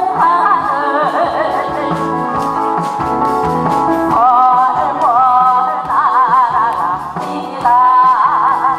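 A woman singing a Korean trot song into a microphone with strong vibrato, over instrumental accompaniment through a PA.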